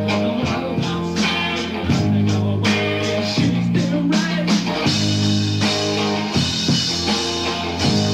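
Early-1980s rock band recording: guitar and bass hold sustained chords that change about every one and a half seconds, with the treble brightening about halfway through.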